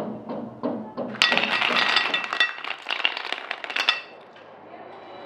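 Glass or china clinking: a few soft knocks, then about three seconds of quick, ringing clinks, as when dishes, glasses or cutlery are handled.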